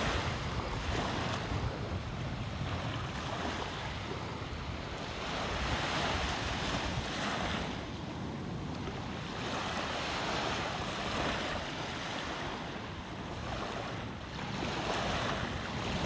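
Small sea waves lapping and washing up on a sandy beach, swelling and easing every few seconds, with wind buffeting the microphone.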